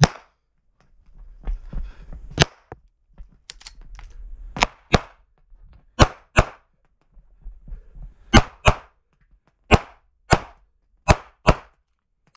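9mm major pistol, an SPS Vista Star open gun, fired about a dozen times, mostly in quick pairs a third of a second apart, each shot ringing off the concrete walls of an indoor range.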